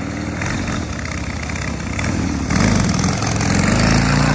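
1979 Harley-Davidson Ironhead Sportster's 1000 cc V-twin engine running as the chopper is ridden. About two and a half seconds in it gets louder and rises in pitch as it accelerates.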